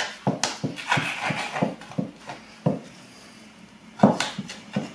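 Table knife trimming pastry around the rim of a foil pie tin: a quick run of small clicks and taps as the blade knocks the tin edge, a pause, then a louder knock about four seconds in and a few more taps.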